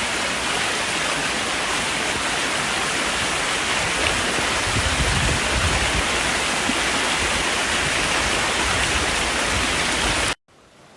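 Floodwater rushing, a loud steady wash of water noise that cuts off suddenly near the end.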